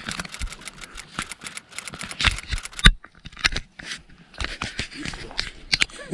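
Close handling noise: a run of irregular clicks, rattles and scrapes, loudest with a sharp click just before a short lull about three seconds in.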